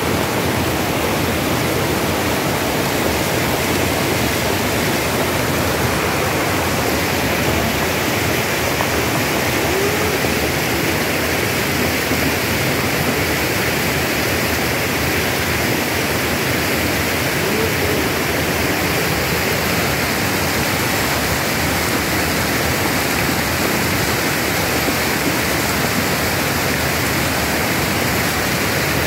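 Muddy floodwater from an overflowing river rushing down a street: a loud, steady rush of water.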